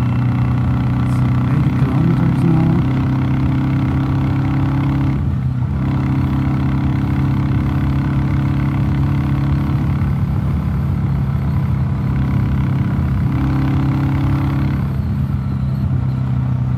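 Royal Enfield Classic 350 Reborn's single-cylinder engine running steadily at road speed, with a brief dip about five seconds in. A DNA Stage 2 performance air filter is fitted, and the engine sound is a little bit more bassy.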